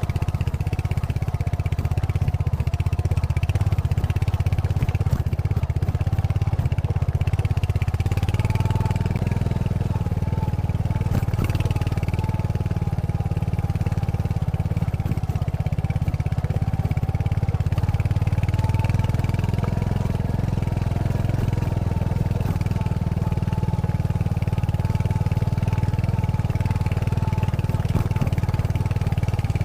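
Royal Enfield Hunter 350's single-cylinder engine and stock exhaust running steadily under way. The engine note rises a little about eight seconds in and then holds.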